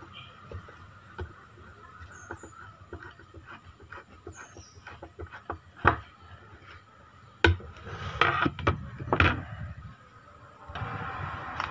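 Hand screwdriver turning wood screws into a knife's wooden handle scale, with small creaks and ticks. A few sharper knocks come between about six and nine seconds in.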